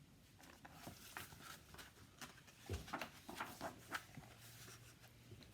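Faint rustles and soft taps, with one dull thump about three seconds in.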